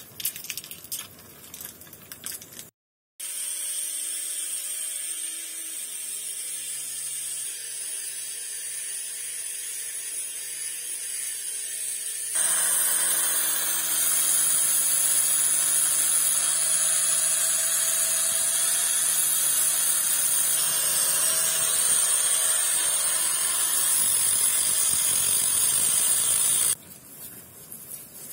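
A small electric motor-driven tool running steadily, in edited stretches: quieter at first, then abruptly louder with a strong hiss about twelve seconds in, and cutting off suddenly near the end.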